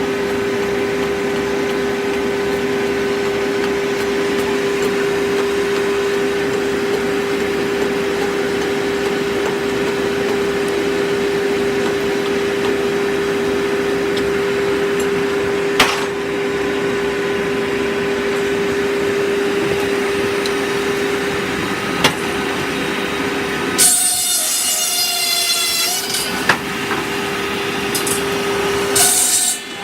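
Circular sawmill running with a steady, droning machine hum, with a few sharp knocks. About three-quarters of the way through, and again near the end, a high wavering screech, typical of the saw blade cutting into wood.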